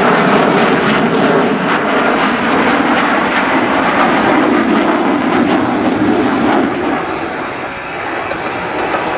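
Jet noise from a four-ship formation of Blue Angels F/A-18 Hornets flying past, a steady rushing that eases off about seven seconds in.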